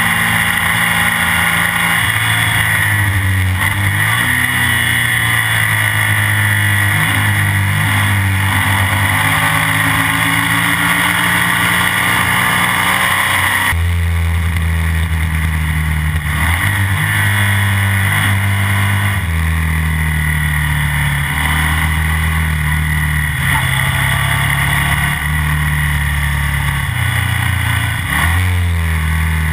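Classic BMW racing sidecar outfit's engine running hard, heard from on board. The engine note steps up and down abruptly several times with gear changes, over constant wind rush.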